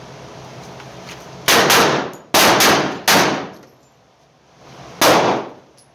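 .45 ACP pistol shots from an HK45 Compact fired at an indoor range: a fast string of shots starting about a second and a half in, then one more shot about five seconds in, each ringing off in the range's booth.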